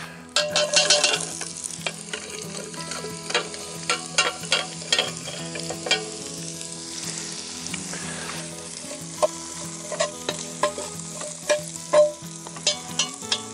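Diced onions sautéing in hot grease in a cast-iron Dutch oven. A loud burst of sizzling comes about half a second in as the onions go into the fat, then a steady sizzle runs on while a spatula stirs and scrapes them against the iron with repeated sharp scrapes and knocks.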